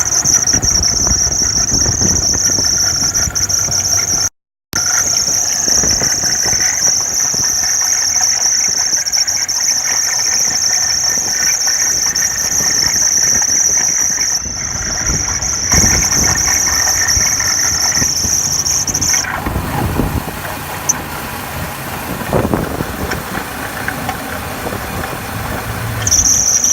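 2008 Hummer H3 engine running with a steady, high-pitched squeal from its belt drive over the low engine rumble: a squeaking fan belt or belt pulley. The squeal stops for several seconds past the middle and returns near the end. There is a brief total dropout about four seconds in.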